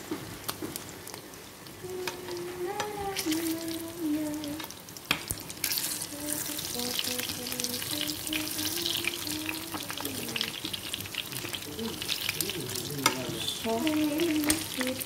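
Salmon frying in butter and garlic in a pan, sizzling with a steady spitting crackle that grows louder partway through.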